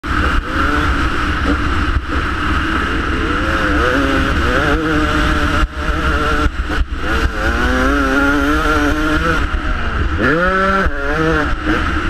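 Dirt bike engine revving up and down as the rider accelerates and shifts around a motocross track, with a sharp climb in revs near the end. A constant low rumble of wind hits the helmet-mounted camera's microphone throughout.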